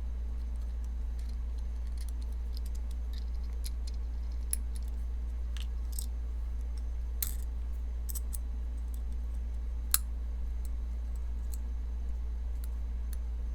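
Small metal parts of a folding knife clicking and tapping as they are handled and fitted during reassembly: scattered sharp ticks, the sharpest about ten seconds in, over a steady low hum.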